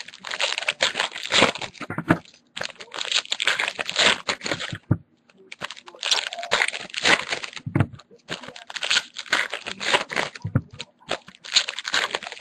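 Foil trading-card pack wrappers being crinkled and torn open by hand, in several stretches of a second or two with short pauses between them.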